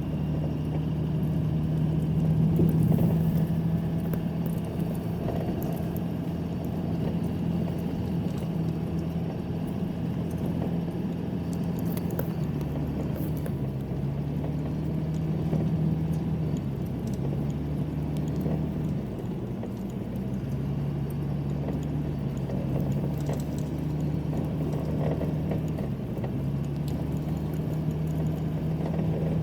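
A vehicle engine running at a steady speed, its low hum dipping slightly in pitch now and then, with rumbling road or motion noise underneath.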